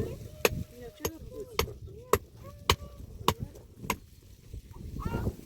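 Steady blows of a hand tool, about two a second, each one sharp and short, with voices faintly in the background and louder near the end.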